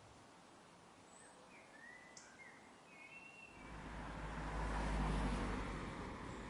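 Outdoor ambience: a few short, thin bird chirps in the first half, then about halfway through a low rumbling noise swells up, peaks, and eases off slightly, from a passing vehicle or a gust of wind.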